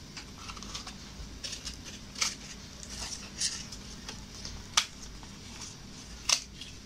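Scissors snipping through corrugated cardboard: a series of sharp, irregular cuts, several seconds apart.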